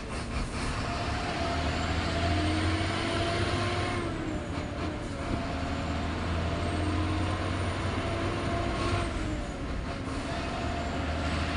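Heavy truck's diesel engine heard from inside the cab, pulling through the gears: its note rises steadily, then drops back at a gear change about four seconds in and again about nine seconds in, with a faint high whistle rising alongside.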